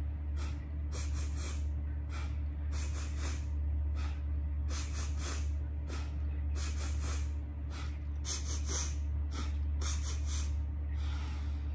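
A woman doing 'bunny breath': sets of three quick, sharp sniffs in through the nose, each followed by one breath out, repeated every couple of seconds, with a longer exhale near the end. A steady low hum runs underneath.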